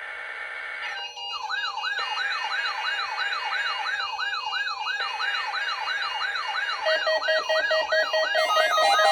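Electronic warbling alarm tone: a siren-like pitch sweeping up and down about three times a second, starting about a second in over a bed of steady electronic tones. Near the end a pattern of pulsing beeps joins it.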